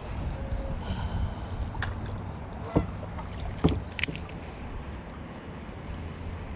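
Handling noise aboard a fishing kayak: a steady low rumble with a few sharp knocks and clicks of gear against the hull.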